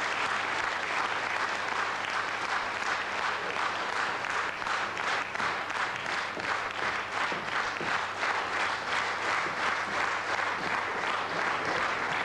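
A theatre audience applauding, the loose applause falling into rhythmic clapping in unison about four seconds in.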